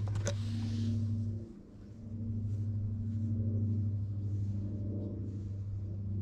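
Ginger tabby cat purring while being stroked: a steady low hum that fades briefly about a second and a half in, then resumes.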